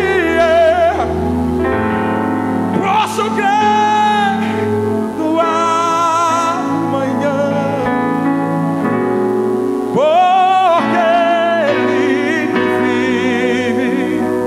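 Live gospel worship music: a male lead singer holds long notes that waver and glide, over a keyboard and band accompaniment.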